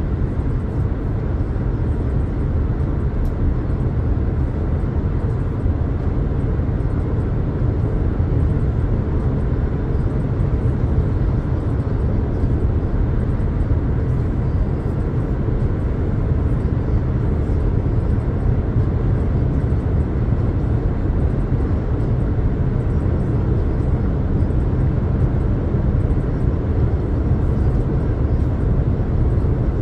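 2022 Jeep Compass Latitude driving at a steady pace: a continuous low rumble of road and engine noise with no changes in level.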